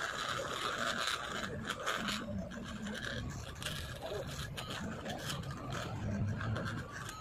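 Small screwdriver and an opened Xiaomi Poco X3 Pro scraping and clicking as they are worked and shifted on a rubber repair mat, with irregular handling noise.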